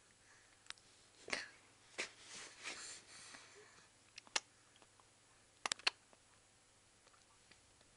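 Scattered soft smacks and wet clicks of a baby eating puréed apple off a plastic spoon, with a short breathy sniff between them and a quick pair of clicks about three-quarters of the way through.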